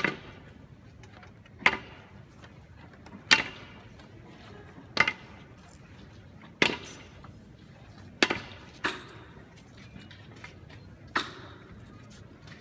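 Sharp knocks at a slow, even pace, about one every second and a half, each with a short echo. A longer gap comes before the last knock.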